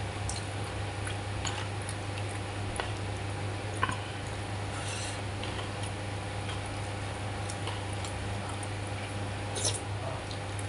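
Metal spoon clinking and scraping against a plastic bowl while someone eats. A few sharper clicks stand out, the loudest about four seconds in and near the end, over a steady low hum.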